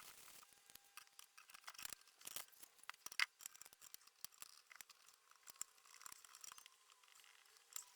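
Faint, irregular small clicks and light rustling, with one sharper click about three seconds in; no motor is running.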